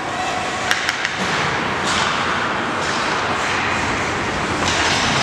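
Ice hockey play in an indoor rink: a steady hiss of rink noise with swells of skates scraping the ice, and two sharp clacks close together about three-quarters of a second in.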